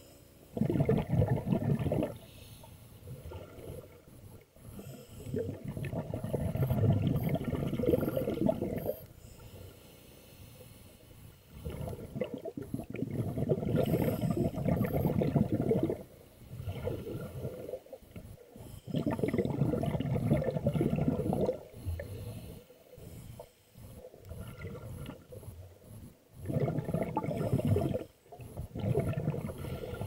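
Scuba regulator exhaust: the diver's exhaled bubbles bubble out in loud bursts about every four to five seconds, with quieter inhalation gaps between, heard underwater.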